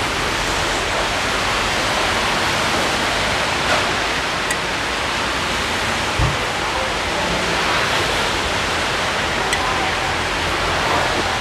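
A steady, even rushing noise throughout, with a few faint clicks and one short low thump about six seconds in.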